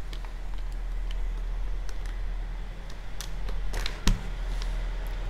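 Small clicks and taps of fingers handling a Studds Ninja Elite helmet's plastic visor pivot mechanism and its screw while the screw is refitted, with one sharper click about four seconds in. A steady low hum runs underneath.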